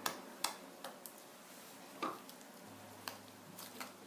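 Red slime being kneaded and squeezed by hand, giving a string of short, irregular sticky clicks and pops.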